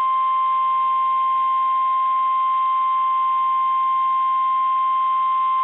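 Emergency alert tone sounding ahead of a tornado warning: a single steady high-pitched tone held without a break, the NOAA Weather Radio warning alarm.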